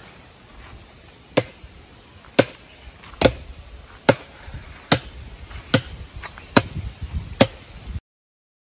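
Green bamboo cane being chopped at its base with a hand blade: eight sharp strikes, a little under one a second, then the sound cuts out abruptly near the end.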